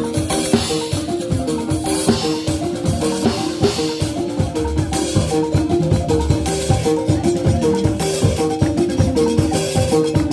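Balafon, the West African wooden-keyed xylophone, playing a fast, repeating melodic pattern of short struck notes, with drums beating underneath.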